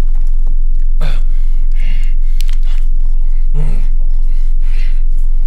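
A man's short breathy gasps and sighs, a few scattered over several seconds, over a loud, steady low hum.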